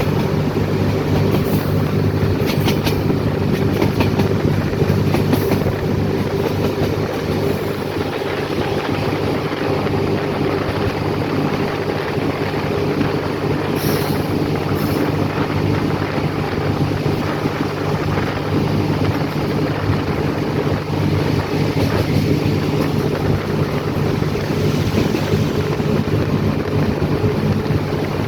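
A train running steadily: a constant rumble with a low steady hum, and a few sharp clicks from the wheels on the track.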